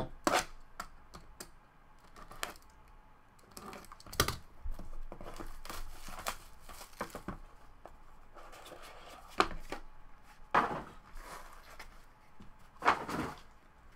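Plastic shrink wrap tearing and crinkling as a sealed trading-card box is opened. Scattered clicks and knocks come from the box and hard plastic card cases being handled on a table.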